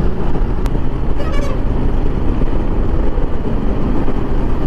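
Steady wind rush and road noise while riding a Royal Enfield Himalayan motorcycle at highway speed, with its 411 cc single-cylinder engine running underneath, as a large truck passes alongside.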